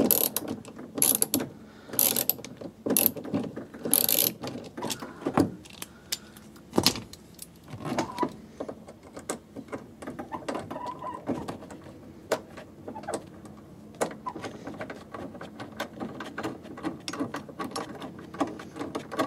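Ratchet screwdriver clicking as it backs out a Phillips screw, in short bunches about once a second at first, then in finer, quieter runs of ticks.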